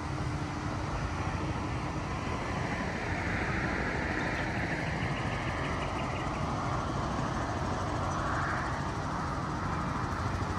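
Engine running with a steady low rumble, its whine falling in pitch a few seconds in, rising again, and climbing once more near the end.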